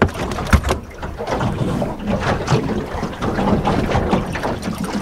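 Steady wind and water noise around a small boat in choppy sea, with a couple of sharp knocks in the first second.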